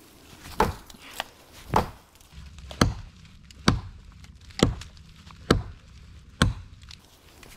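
Wood being chopped or struck on a log: sharp knocks coming evenly about once a second, seven strong ones in a row.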